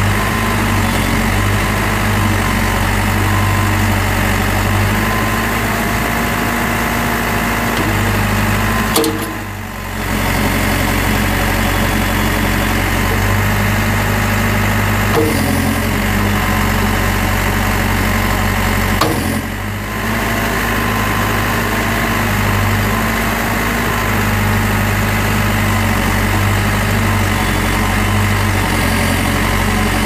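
Case 590 Super M backhoe's four-cylinder diesel engine idling steadily, dipping briefly twice.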